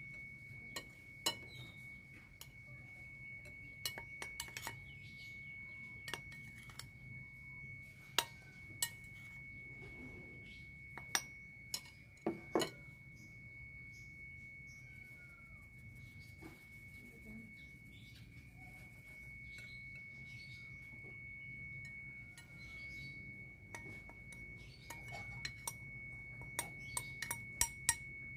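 Stainless steel mesh sieve tapping and clinking against a glass mixing bowl while flour is sifted, in scattered sharp taps that come thicker near the end. A steady faint high-pitched whine runs underneath.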